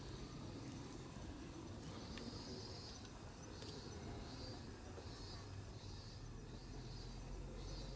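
Faint, high chirping from a small animal, first held and then repeating about every two-thirds of a second through the second half, over a steady low rumble.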